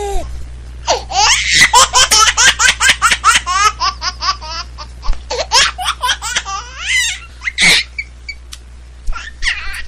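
A young child laughing hard in a fast run of high-pitched giggles, about five a second, that lasts several seconds, then one loud squeal and a few short laughs near the end.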